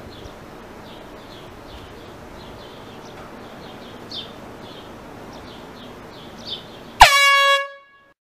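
A single loud air horn blast about seven seconds in, a steady pitched honk with a sharp start, lasting under a second. Before it there is only faint high chirping over a quiet ambient background.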